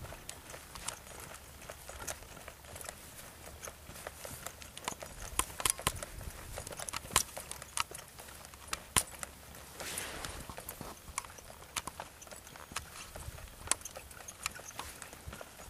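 Hoofbeats of a saddled Paint mare trotting on the soft dirt of a round pen, an irregular run of sharp clicks and thuds.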